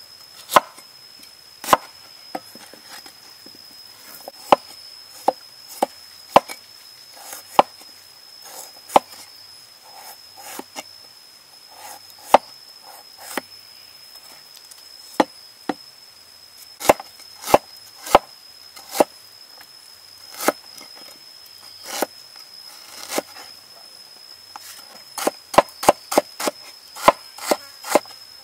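Steel cleaver chopping fresh ginger on a wooden cutting board: sharp, irregularly spaced knocks of the blade striking the board, quickening into a fast run of cuts near the end as the ginger is cut into thin strips. A steady high-pitched insect drone runs behind it.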